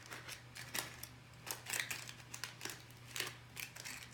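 Short, irregular scratchy rubbing and handling noises from work on small chrome tuner pegs, about a dozen strokes, over a steady low electrical hum.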